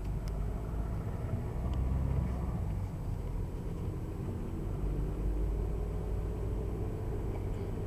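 2002 Volkswagen Jetta TDI's 1.9-litre four-cylinder diesel running while the car is driven: a steady low rumble with engine tones, slightly louder around two seconds in and again near five seconds.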